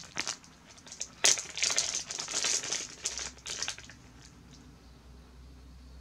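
A clear plastic bag crinkling and crackling as it is handled and a wax melt is taken out of it, loudest for a couple of seconds in the middle, then dying away.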